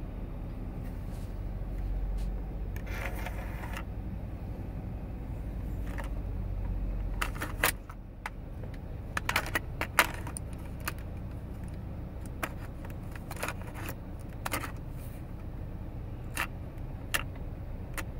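Plastic buttons and the cassette slot door of a CD/cassette car stereo being pressed: scattered sharp clicks, several in quick succession about nine to ten seconds in, then single ones. A low hum underneath stops about eight seconds in.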